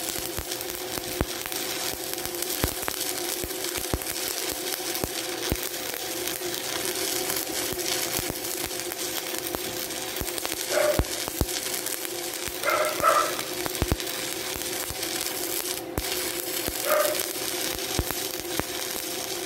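Stick (shielded metal arc) welding arc running a vertical-up bead, a steady crackle and sizzle with frequent sharp pops over a steady hum. A few short higher-pitched blips stand out about 11, 13 and 17 seconds in.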